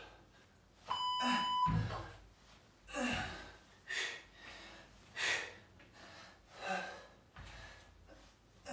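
A man breathing hard in short, sharp exhalations about every second and a half while doing mountain climbers. About a second in, a steady electronic beep lasting over half a second sounds, typical of a tabata interval timer. A few low thuds come from the workout.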